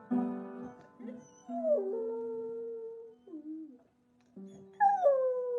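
A few piano chords, then a dog howling. First comes a long howl that drops and holds its pitch, then a short one. Near the end a louder howl slides steadily down in pitch.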